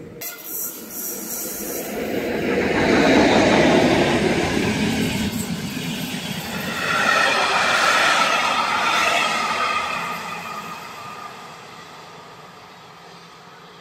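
A locomotive-hauled passenger train passing close by at speed: wheel-on-rail rumble and rush swell to a peak a few seconds in, rise again with a thin ringing note as the coaches go by, then fade as the train runs away.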